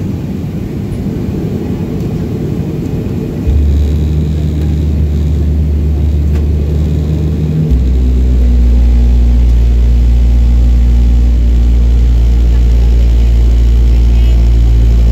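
Jet airliner's engines and cabin noise heard from a window seat while the plane taxis onto the runway. A rumble at first, then a low steady drone comes in suddenly a few seconds in and steps louder again about halfway through as engine power goes up.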